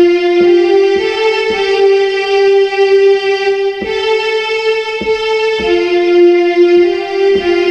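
Yamaha electronic keyboard playing a slow single-note hymn melody in F major, each note held and sustained, with a new note every half second to two seconds.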